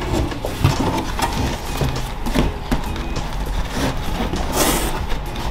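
Long cardboard box being opened by hand: the lid flaps rustle and scrape, with scattered light knocks and a brief louder scrape of cardboard about four and a half seconds in.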